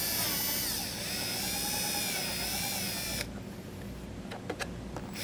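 Power drill spinning a step bit through a plastic trim panel. The motor whine dips and wavers in pitch as the bit cuts, then stops abruptly about three seconds in. A few light clicks follow near the end.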